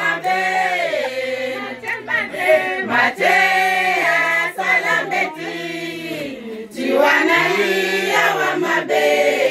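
A group of women singing a song together, holding notes that change in steps, with short breaks between phrases.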